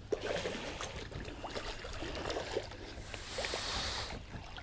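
Water sloshing and splashing around a fishing kayak, with scattered small clicks and knocks, and a brighter splash about three seconds in.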